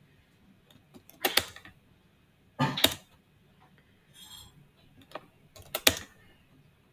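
Computer mouse and keyboard clicking: three short clusters of sharp clicks, about a second in, near three seconds and near six seconds.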